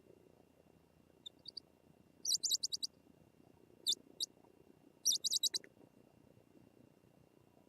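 Bird chirping: a few separate bursts of high, quick chirps, the longest two being rapid strings of about six to eight notes.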